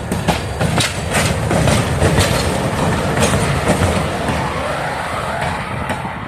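Passenger train rolling past: a low rumble with repeated sharp clicks of wheels passing over rail joints, loudest about two seconds in and fading near the end.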